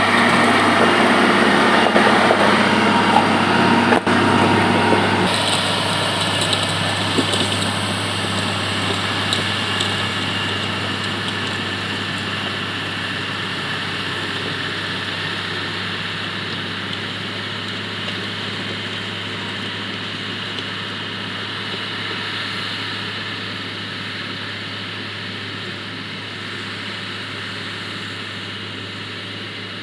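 Komatsu GD 511A motor grader's diesel engine running steadily, loudest for the first five seconds, then changing abruptly and growing gradually quieter.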